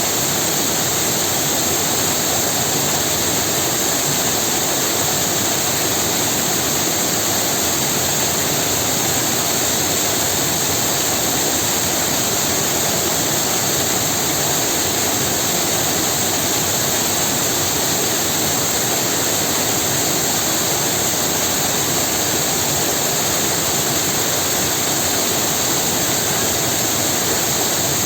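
Waterfall: a steady, unbroken rush of falling water, even and unchanging.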